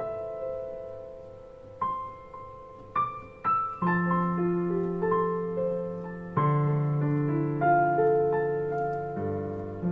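Background music: a slow solo piano piece, sparse notes fading away at first, then fuller chords with bass notes from about four seconds in.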